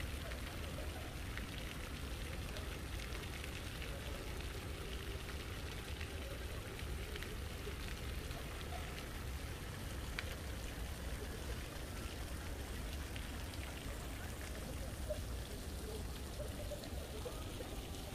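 Steady outdoor background noise: a low rumble with faint distant voices and scattered light ticks.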